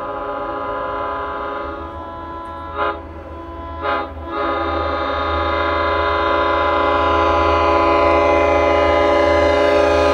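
LIRR EMD diesel locomotive approaching with its air horn sounding a multi-tone chord, with two short blips about a second apart near the middle, and the horn growing louder as the train nears, over a rising low rumble from the locomotive.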